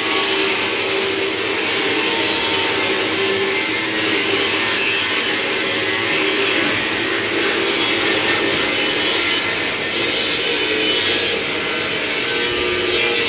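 Electric centrifugal blower and motor of a rice-husk furnace running steadily: a loud, even rush of air with a faint wavering hum.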